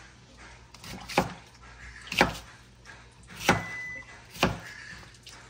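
Huusk Japanese-style kitchen knife chopping on a cutting board: four sharp knocks, about one a second.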